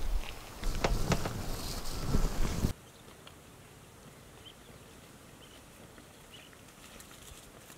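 Water poured in a thin stream onto flour in a steel bowl, splashing and trickling over a low wind rumble on the microphone. It cuts off abruptly about a third of the way in, leaving a faint hiss with a few faint high chirps.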